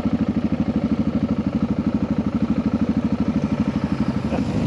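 Single-cylinder dual-sport motorcycle engine idling at a standstill, a steady, even beat of firing pulses.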